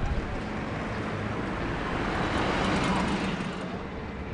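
Road traffic: a passing vehicle's rushing noise swells to a peak around the middle and then fades, over a low steady engine hum.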